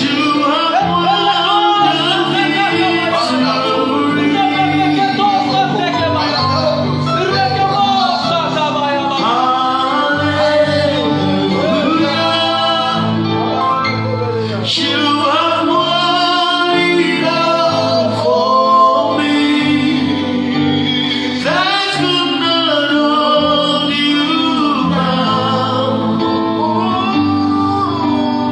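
Gospel worship song: a singing voice drawing out long, sliding notes over sustained keyboard and bass accompaniment.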